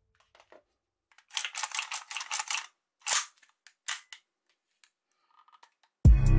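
Metal and plastic parts of a toy AK-47 replica with wood furniture clicking and rattling as it is handled with gloved hands: a quick cluster of clicks, then a few single sharp clicks. Loud music with a beat starts near the end.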